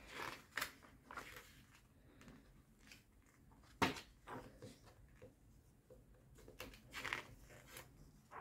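Pages of a glossy magazine being turned by hand: soft paper swishes and rustles, with one sharper slap of a page about four seconds in.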